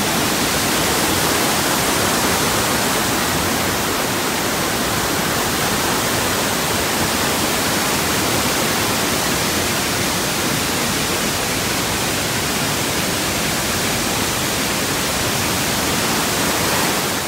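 Rushing white water of a forest river and waterfall, a loud, even, unbroken hiss.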